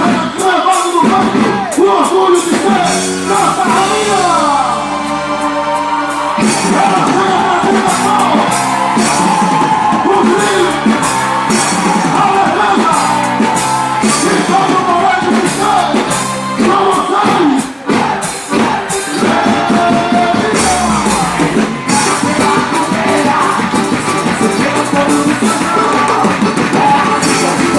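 Loud music with singing over a steady percussive beat.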